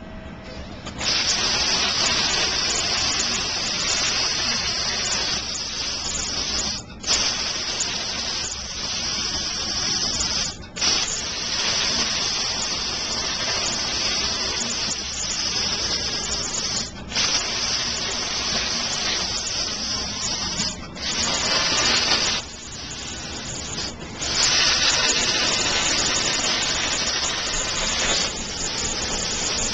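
Hypertherm Powermax380 plasma torch on a homemade CNC table cutting metal: a loud, steady hissing rush of the plasma arc and its cutting air. It starts about a second in and stops for a moment about five times as the torch switches off and back on.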